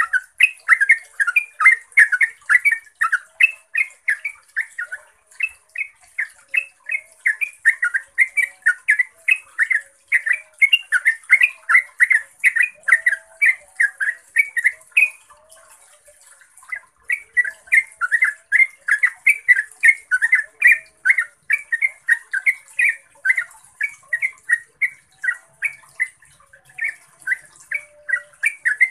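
Yellow-vented bulbul singing a long run of quick repeated notes, several a second, with a short break a little past halfway: the continuous "ropel panjang" song prized by trucukan keepers.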